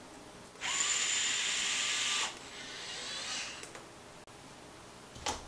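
Small cordless electric screwdriver running with a hex bit. It spins up with a rising whine about half a second in, runs steadily for under two seconds, then carries on more quietly for another second or so. A sharp click comes near the end.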